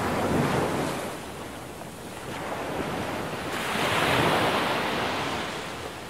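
Ocean surf: a rushing wash of waves that swells, eases off, then surges again to its loudest about four seconds in before fading.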